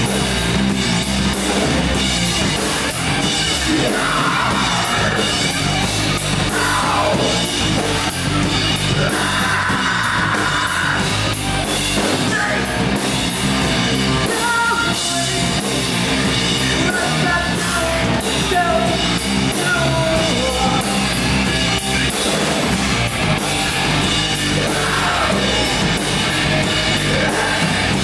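A rock band playing live and loud: electric guitars, bass and a drum kit, with a singer's vocals coming in and out over them.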